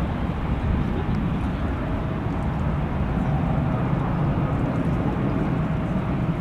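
Rolls-Royce Trent 700 turbofans of an Airbus A330-300 on final approach, a steady low jet rumble with a faint steady whine that comes in about two seconds in.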